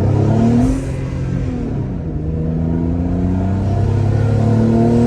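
Twin-turbocharged Infiniti G35 V6 accelerating under about 7 psi of boost: the engine note climbs, falls back twice in the first two seconds as it shifts up, then climbs steadily again.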